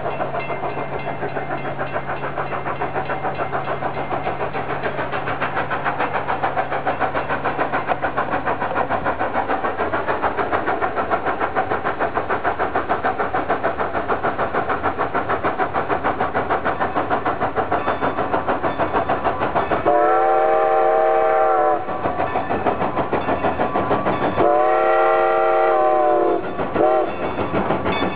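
Strasburg Rail Road No. 90, a 2-10-0 steam locomotive, working upgrade with a freight train: a steady, rapid beat of exhaust chuffs. Near the end its steam whistle sounds long, long, short, long, the grade-crossing signal, with the last blast still sounding at the close.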